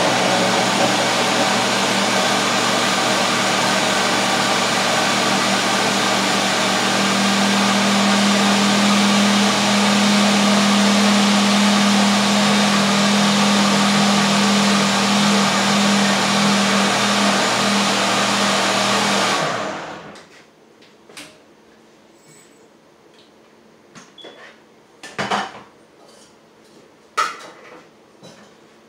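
Countertop blender running steadily, blending masa with water; its motor hum grows stronger about seven seconds in, and it is switched off after about twenty seconds. After that come a few scattered clinks and knocks as the blender jar is handled.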